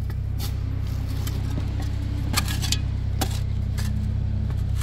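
Spade scraping and chopping into red clay and stones, about half a dozen short sharp scrapes and clicks, over the steady low drone of an engine running.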